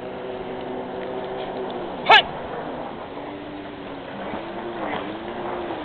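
One short, loud kiai shout from a karateka performing a kata, about two seconds in, over a steady low droning hum.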